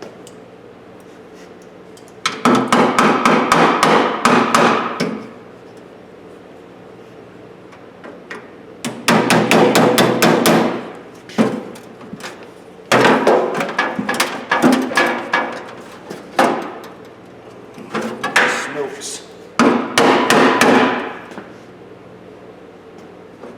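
Hammer rapidly tapping on the sheet-steel parts of an old Craftsman toolbox drawer, in five bursts of quick blows with short pauses between them.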